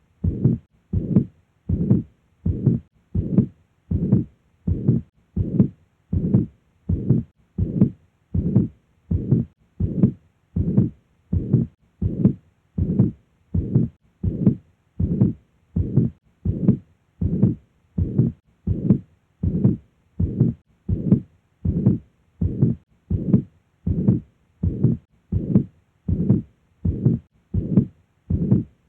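Simulated stethoscope auscultation of a pericardial friction rub: short rubbing sounds come with each heartbeat, in a steady rhythm a little faster than one beat a second. The rub is the sign of pericarditis, the inflamed pericardial layers rubbing against each other.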